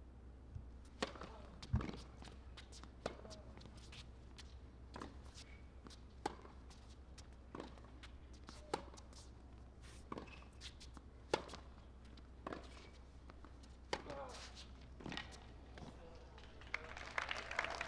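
Tennis ball struck back and forth in a long rally on a hard court: a string of sharp racket hits and ball bounces, roughly one every second or so. A brief cluster of voices and noise comes near the end.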